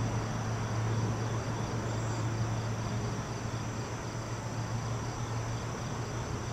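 A steady chorus of insects trilling high and evenly, with a low steady hum underneath.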